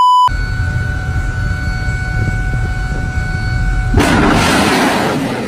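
A test-pattern beep cuts off, then a steady tone hangs over a low rumble; about four seconds in, a sudden loud roar breaks out and keeps going: a missile launching from a navy destroyer.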